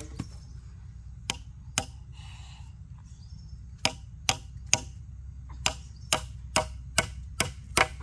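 Hammer striking nails into wood: a few scattered blows, then from about four seconds in a steady run of roughly two blows a second.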